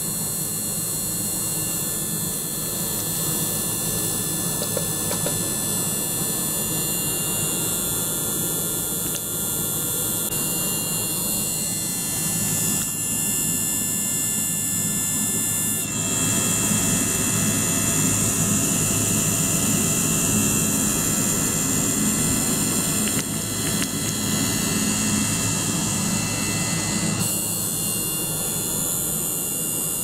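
Ultrasonic cleaning bath running with a small water-circulation pump: a steady hiss carrying several high, thin whining tones over a low hum. The mix of high tones shifts abruptly about halfway through and again near the end.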